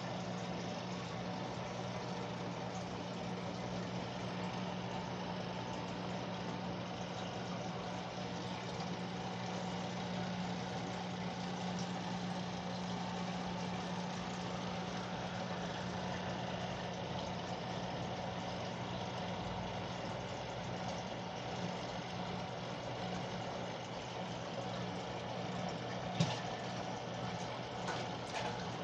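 Steady electric hum of an aquarium pump motor running, with one light click near the end.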